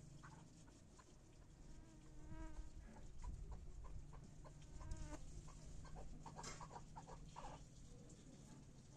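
Chukar partridge calling faintly: short clucking notes, clearest about two and a half and five seconds in, with scattered small clicks.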